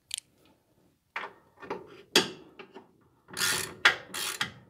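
Ratchet wrench clicking in short strokes as a shock-mount nut is tightened. The strokes come in a few brief spurts, then run longer and louder near the end.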